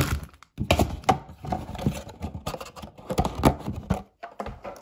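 A stack of sealed trading-card packs being handled and set down on a tabletop: a run of irregular light knocks and taps with some rustling.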